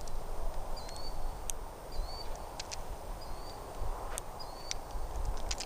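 A bird repeating one short chirp about every second, over a low steady rumble, with a few sharp clicks in between.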